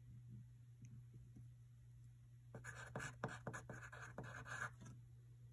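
Pencil scratching on paper in a run of short writing strokes, starting about halfway through, over a faint steady low hum.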